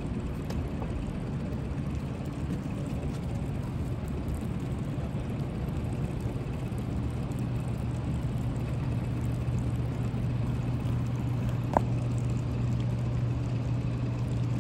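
Boat outboard motor idling steadily, a low even hum over a steady rushing background, with one brief sharp click about twelve seconds in.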